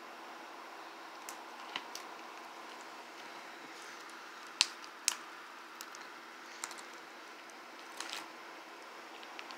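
Over-activated foam-bead slime (floam) being squeezed and kneaded by hand: scattered sharp crackles and pops from the beads and the stiff slime, the two loudest close together about halfway through, over a steady low hiss.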